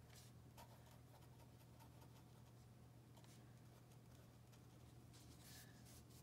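Faint scratching of a metal pen nib on notebook paper during handwriting: a few short strokes over a low steady hum.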